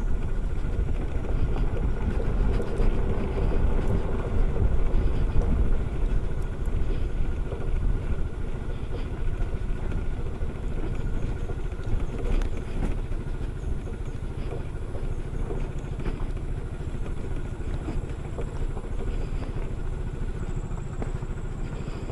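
SYM Cruisym 250 scooter ridden slowly down a loose gravel track: a steady rumble of tyres on gravel and engine, with scattered knocks from stones.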